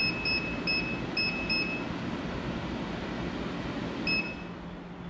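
Window-type air conditioner running with a steady fan whoosh, its newly fitted universal control board beeping as remote commands are received: five short beeps in quick succession, then one more about four seconds in.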